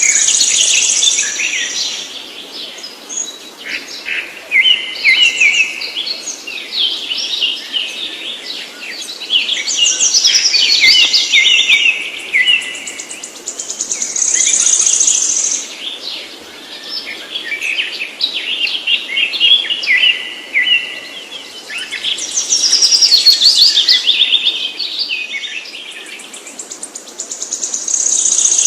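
A songbird singing: phrases of rapid, varied high chirps and trills, each a few seconds long, repeated about every four to five seconds with short pauses between.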